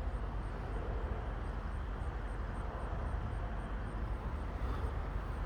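Steady outdoor background rumble with no siren sounding yet; the siren test has not started.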